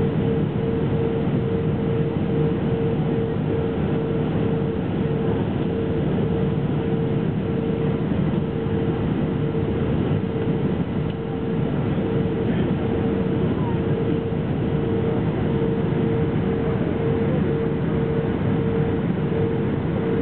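Steady cabin noise of an Airbus A319 airliner descending on approach: airflow and engine noise heard from a seat over the wing, with a steady mid-pitched hum running through it.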